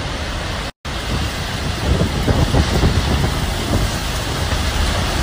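Tornado winds and heavy rain: a dense, loud rush of storm noise with gusts buffeting the microphone. The sound cuts out for a split second about a second in.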